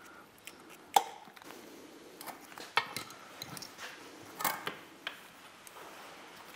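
Light metallic clinks and clicks as steel connecting rods and their bearing shells are handled. There are a handful of sharp ones, the loudest about a second in.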